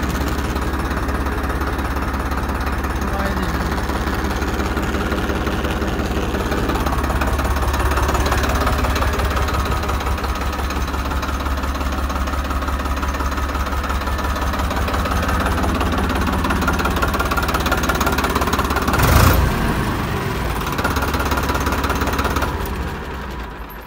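Farmtrac 60 PowerMaxx tractor's three-cylinder diesel engine idling steadily just after starting, with a clattering, low rumbling run and one short louder surge about five seconds before the end.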